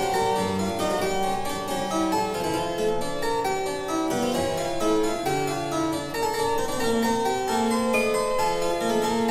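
Background instrumental music: a busy piece of many quick, overlapping notes in several lines at an even pace.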